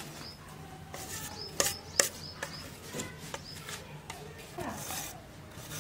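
Steel utensils and a steel bowl clinking and tapping as thick cake batter is poured and scraped out, with two sharp taps about one and a half and two seconds in.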